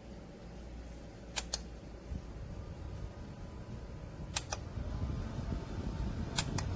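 Small battery-powered portable clip-on fan running with a steady low whir. Three sharp double clicks sound about three seconds apart over it.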